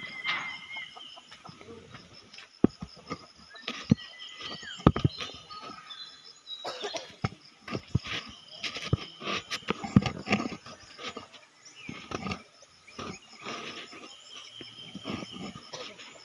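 Birds calling in short pitched notes over scattered knocks and rustling.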